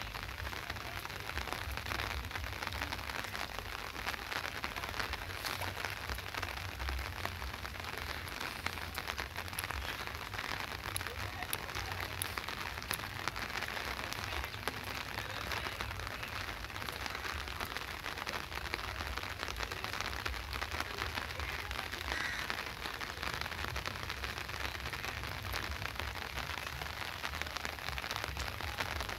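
Steady rain falling on wet paving and the lake, a dense, even patter of drops, with a steady low rumble underneath.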